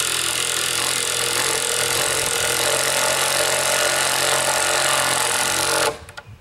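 Cordless impact driver with a 5/8 socket hammering a serrated lag bolt into a treated wooden post without a pilot hole. It runs loud and steady, then stops abruptly near the end as the bolt seats.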